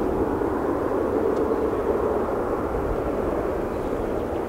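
Jet airliner engines heard at a distance: a steady, even roar that fades slightly.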